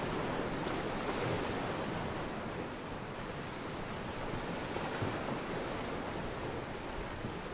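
Steady rush of water and wind on open water, with wind buffeting the microphone.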